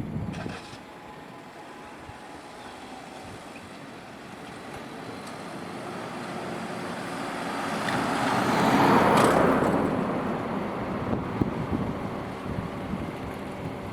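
A road vehicle passing by, its noise swelling from faint to loudest about nine seconds in, then fading.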